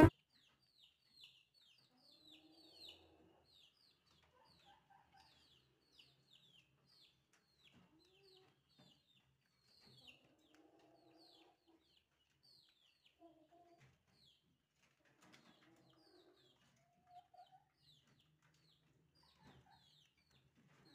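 Faint bird calls: a steady run of short, high, falling chirps, a few a second, with lower clucking calls now and then.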